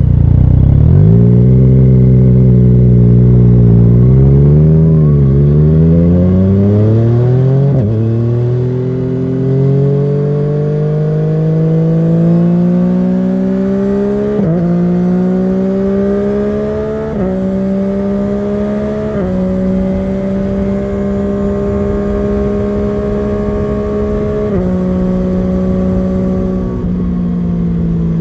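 Yamaha MT-09's three-cylinder engine through a Scorpion Serket carbon slip-on exhaust, accelerating hard. Its pitch climbs steadily and drops abruptly several times as the quickshifter snaps through the upshifts.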